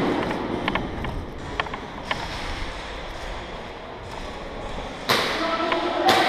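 Movement and handling noise of an airsoft player going through a warehouse field: scattered light clicks, then a sudden loud burst of noise about five seconds in, a second sharp hit near the end, and a steady tone under them.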